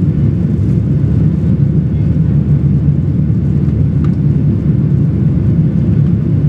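Cabin noise of a Boeing 737-800 in climb after takeoff: a steady low rumble of its CFM56-7B engines and rushing air, heard from inside the cabin. A faint tick about four seconds in.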